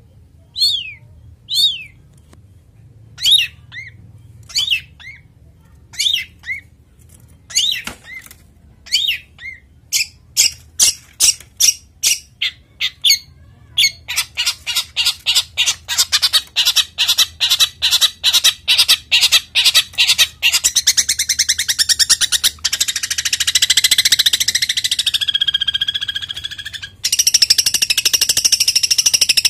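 Caged songbird singing: a few falling whistled notes, then a string of sharp notes that speeds up into a fast continuous chatter about halfway through, switching to a higher, faster trill near the end.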